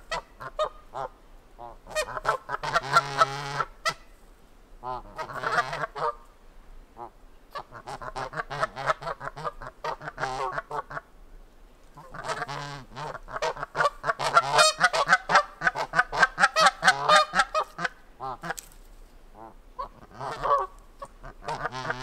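Canada geese calling: bouts of quick, short honks repeated in rapid runs of one to five seconds with short pauses between. The longest and loudest run comes in the middle.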